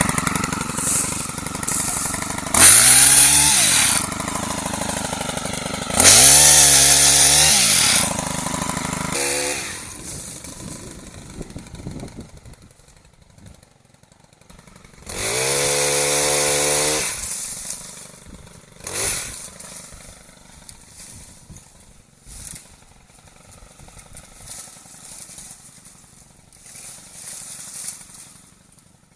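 Chainsaw engine revved up to full throttle three times, each rev rising and falling back, with quieter idling stretches between, while limbs are cut from a pin oak.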